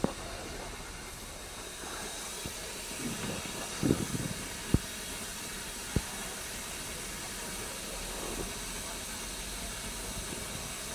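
Narrow-gauge steam locomotive hissing steadily while standing. There is a short louder noise about four seconds in, then two sharp clicks a second or so apart.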